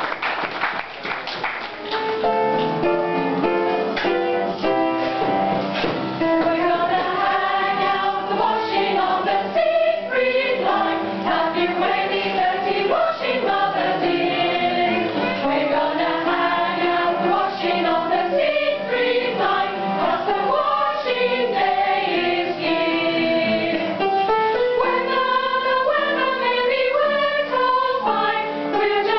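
Applause dies away, then a mixed choir of men and women starts singing about two seconds in and carries on through a steady, tuneful song.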